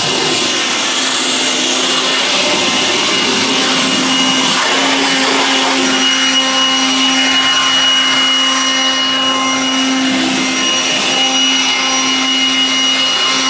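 Cordless battery-powered jet fan leaf blower running steadily: a loud rush of air over a steady high motor whine.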